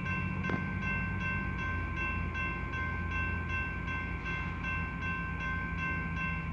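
Railroad crossing bell ringing rapidly, about three strokes a second, while the crossing gates lower, over a steady low rumble. The ringing stops near the end.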